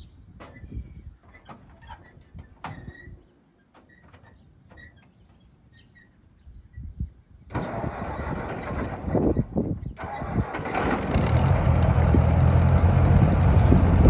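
The baler's four-cylinder 170-cubic-inch Ford engine is cranked over about halfway through. It catches and runs steadily, growing louder toward the end.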